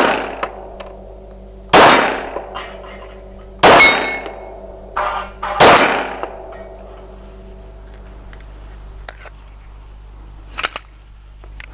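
Glock 17A Gen 4 9mm pistol firing three shots about two seconds apart, each with a long echoing tail, and steel targets ringing as they are hit. A few light knocks follow near the end.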